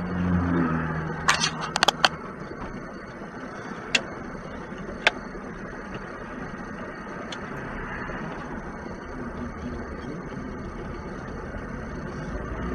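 Steady road and engine noise inside a moving car, heard from a dashcam, with a quick cluster of sharp clicks about a second and a half in and single clicks at about four and five seconds.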